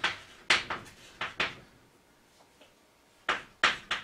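Chalk writing on a chalkboard: a run of short, sharp chalk strokes and taps, a quieter pause of about a second and a half midway, then another run of strokes.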